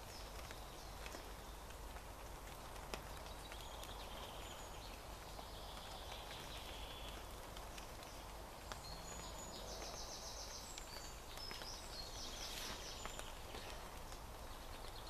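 Faint woodland ambience in the rain: a steady hiss with scattered drips, and small birds singing short rapid trills of high notes, most clearly in the second half.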